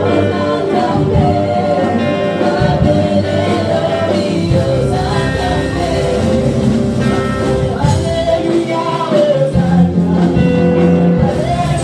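A small church worship team singing a gospel song together into microphones, backed by a live band with keyboard and guitar.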